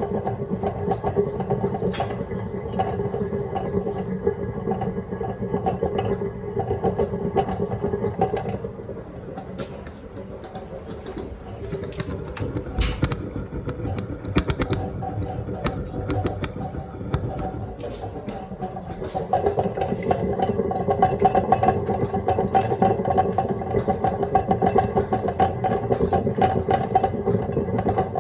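Kitchen sink drain making an abnormal noise: a steady, rapid rattling that eases off for a while partway through, then comes back louder about two-thirds of the way in.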